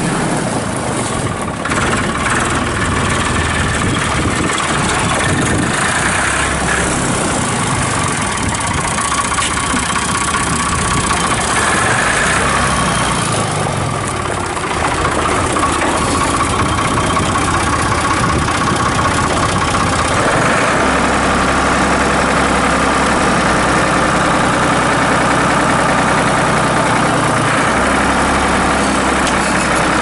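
1989 Ford 3910 Series II farm tractor's three-cylinder engine running steadily, its note shifting in pitch a few times.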